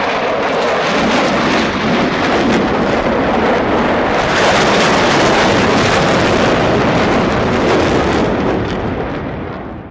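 Jet aircraft flying past low, a loud engine roar that builds to a peak about halfway and then fades away.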